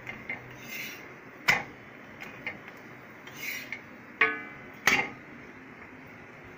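A steel spatula scraping and clinking against a tawa as a cooked paratha is lifted off. There are three sharp metal clinks, one ringing briefly, with short scrapes between them.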